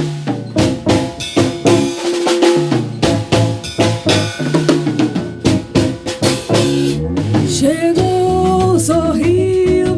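Bossa nova played by a small band: a drum kit keeps a busy groove of rimshots, snare and kick over bass and guitar. About seven and a half seconds in, the drum hits thin out and a gliding melody line comes in.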